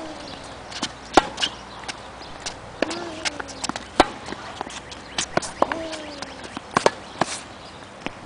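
Tennis rally on a hard court: sharp pops of the ball struck by rackets and bouncing on the court, irregularly spaced, the loudest hit about four seconds in, with a few short squeaks from shoes on the court surface.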